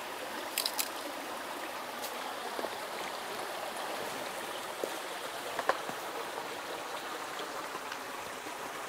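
Small rocky mountain creek running steadily through a shallow riffle, an even rush of water. A few faint clicks near the start and about halfway through.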